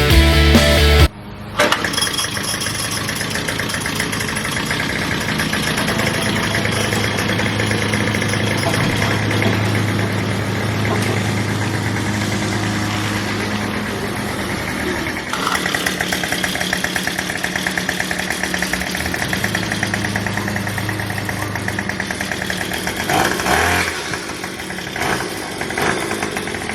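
Small gasoline engine of lawn-cutting equipment running steadily as the grass is cut, with a few brief changes in its sound near the end.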